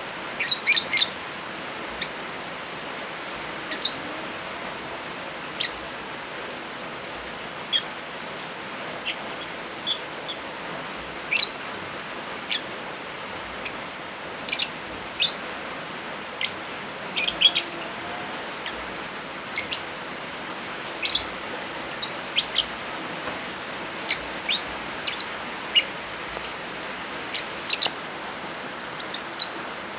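Lovebirds chirping: short, sharp, high-pitched calls at irregular intervals, sometimes in quick clusters, over a steady hiss of rain.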